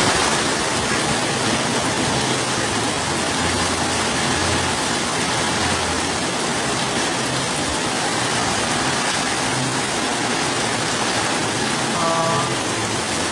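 Heavy rain pouring down in a steady, dense hiss. Near the end a brief pitched sound cuts through it.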